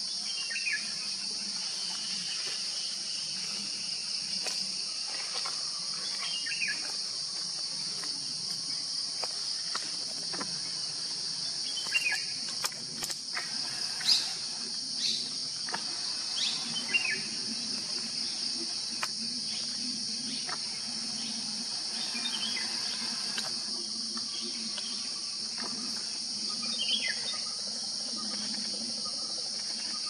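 Steady, high-pitched drone of an insect chorus, with a bird's short falling call repeating every few seconds. A few sharp clicks or snaps stand out near the middle.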